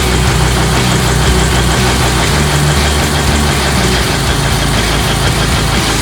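Cummins 2000 kVA diesel generator set engine running steadily with no load during its warm-up, a loud, even, deep hum.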